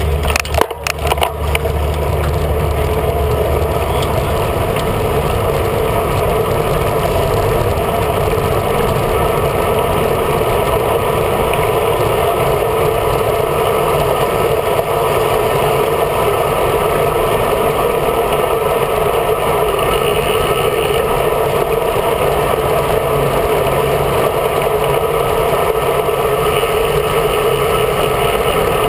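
Steady wind and road noise from a bicycle-mounted action camera riding in a group road ride, with a few sharp knocks near the start as the bike jolts over the road.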